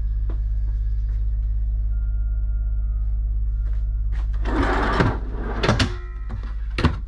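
Wooden pantry door of a motorhome being swung shut, giving a few knocks and clicks in the second half, over a steady low hum.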